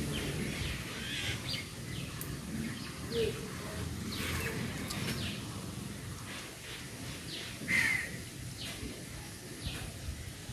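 Birds calling: short falling chirps repeated every second or so, with one louder call about eight seconds in, over a steady low rumble.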